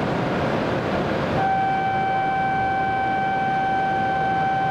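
On a Shinkansen platform, a steady rushing noise cuts off abruptly about a second and a half in. A steady, single-pitched electronic tone then starts and holds unchanged.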